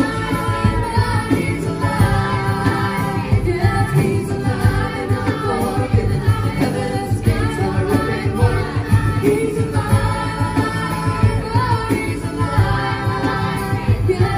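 Live gospel group singing with electric bass and acoustic guitar, adults' and children's voices together over a steady bass pulse.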